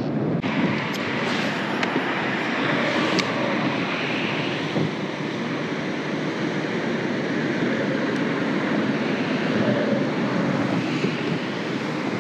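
Steady rush of wind on the microphone over choppy water around a kayak, with a few faint clicks in the first few seconds.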